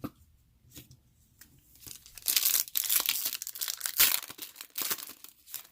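A baseball card pack's wrapper being torn open and crinkled, starting about two seconds in after a few faint clicks and going on for about three seconds.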